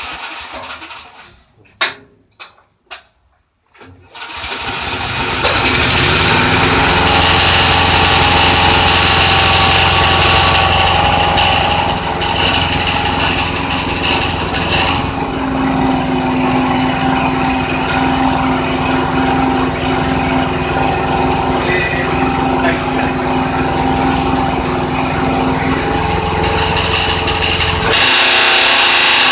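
Small engine cranked with a few short knocks, then catching about four seconds in and running steadily, its pitch shifting partway through. The owner hears an abnormal noise in it and is asking for the cause.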